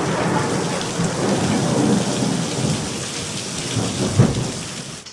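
Thunder rolling over steady heavy rain, with a short sharp crack about four seconds in; the rumble dies away near the end.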